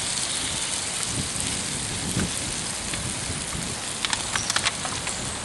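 A pan of kidneys, bacon and vegetables sizzling on an open wood fire after a splash of water, a steady hiss. A quick run of sharp clicks comes about four seconds in.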